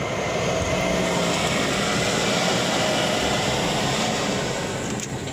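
Off-road 4x4 engine running steadily as a low drone, easing off slightly near the end.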